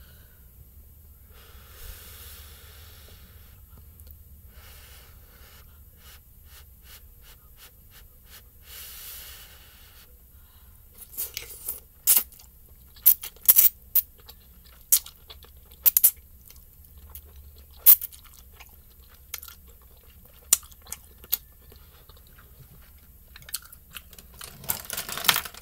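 Close-miked eating of spicy instant ramen noodles: soft slurps of the noodles in the first ten seconds, then chewing with a run of sharp, loud wet smacks, and another slurp near the end.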